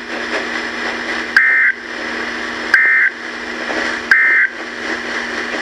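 Emergency Alert System SAME digital data bursts: three short, identical squawks of rapidly warbling high tones, about 1.4 s apart, over radio static. These are the end-of-message code that closes the severe thunderstorm warning broadcast.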